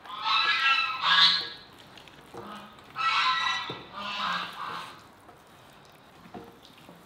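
Bare hands massaging marinade into whole raw chickens: wet squelching of the slick skin with squeaky, honking squeals, in several bursts over the first five seconds.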